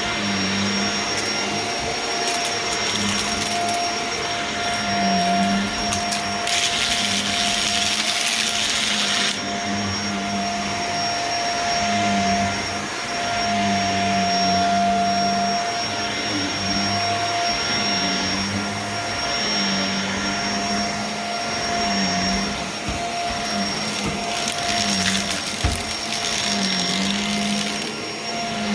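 Vacuum cleaner running with a steady whine, its lower hum wavering every couple of seconds as the load changes. Between about six and a half and nine seconds in there is a louder stretch of high hissing crackle, typical of crunchy debris being sucked up.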